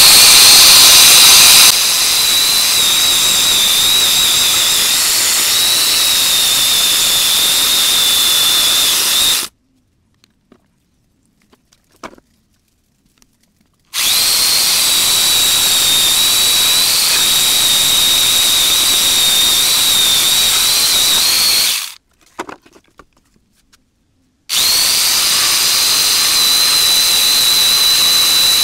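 Mitsushi electric angle grinder fitted with a chainsaw converter attachment, its motor running with a high steady whine. It runs in three long spells and cuts out twice for a few seconds in between.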